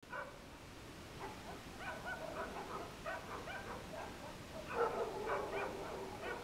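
Dogs barking repeatedly in short calls, a few a second, with the loudest run of barks about five seconds in.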